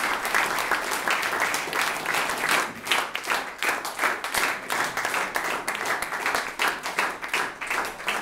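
Audience applauding, the clapping turning more even and rhythmic in the second half, about three claps a second.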